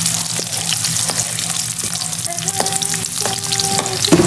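Chopped onion, garlic and green chilies sizzling in hot oil in a metal wok as they are sautéed to brown. A slotted metal spatula stirs them, with scattered clicks and scrapes against the pan.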